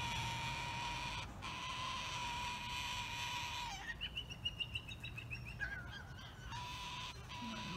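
White cockatoos calling as they lock beaks: a quick run of short, high chirps about four seconds in, then a brief wavering squawk. A steady high tone runs underneath, dropping out while they call.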